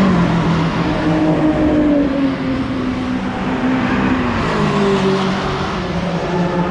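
Race car engines running hard on a circuit, their engine notes rising and falling as the cars accelerate, shift and pass.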